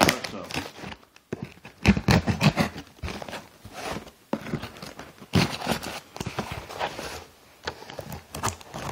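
Cardboard shipping box being cut open with a knife and its flaps and packing paper handled: irregular scraping, rustling and clicking in short bursts.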